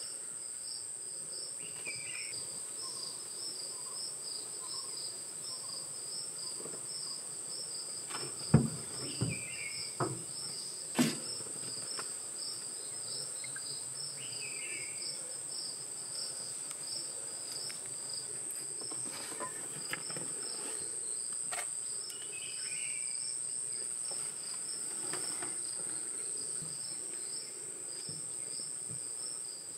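Forest insects: a steady high-pitched whine with a rhythmic chirping beneath it. A short falling call repeats every several seconds, and a few sharp knocks come about eight to eleven seconds in.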